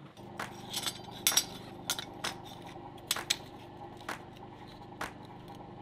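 Metal skull-shaped coasters clinking against one another and on a steel anvil face as they are handled: about a dozen light, irregular metallic clinks over a low steady hum.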